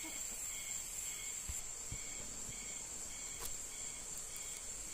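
Insects keeping up a steady high-pitched buzz, with a fainter chirp repeating about twice a second, and a few soft knocks as bamboo hook sticks are handled.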